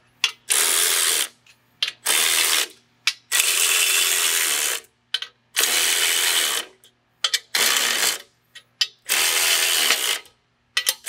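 Cordless electric ratchet running in about six short bursts, each up to about a second and a half long, with brief pauses and clicks between them, as it drives and snugs down the bolts on a steel tire carrier bracket.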